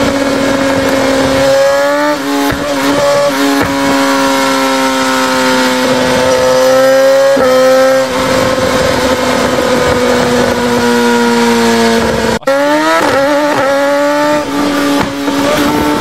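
BMW S1000R inline-four engine running hard at high revs on a motorcycle dyno, a steady high engine note that sags slowly and then climbs again in quick jumps. About twelve seconds in the sound drops out for an instant and the revs climb again in quick steps.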